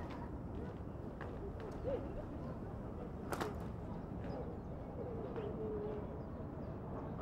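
Outdoor park ambience with a pigeon cooing in low wavering notes, the longest a little after the middle. A single sharp click sounds about three and a half seconds in.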